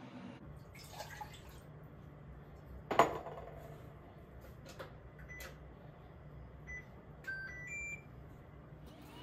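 Glass jars and kitchen utensils being handled on a stainless-steel counter: one loud clunk about three seconds in, a few lighter clicks, and several short high pings near the end, over a low steady room hum.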